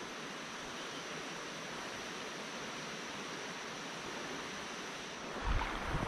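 Creek water flowing over a gravel ford, a steady even rush.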